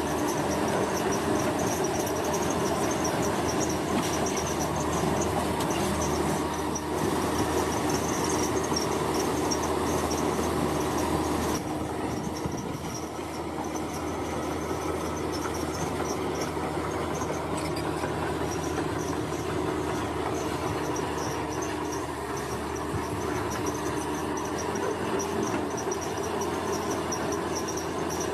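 Heavy road-construction machinery engines running steadily, a continuous rumble with a slight drop in level about twelve seconds in. Insects chirp in a high, pulsing trill over it.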